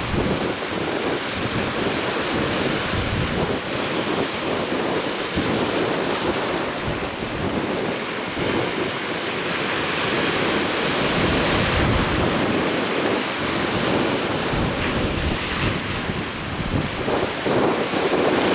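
Rough sea waves with strong wind buffeting the microphone in a steady rumbling rush that swells and eases.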